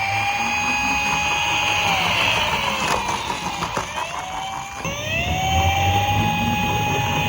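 Toy car's electronic siren wailing: the tone rises, holds steady for about two seconds, then falls away, and does the same again about halfway through. Under it run the low rumble and clicking of small toy cars rolling down a plastic slope.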